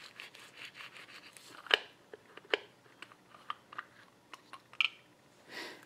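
Handling noise from a power steering gearbox's metal valve housing and input shaft being turned over in gloved hands: rustling at first, then a string of small clicks and knocks. The sharpest come near two seconds in and near five seconds.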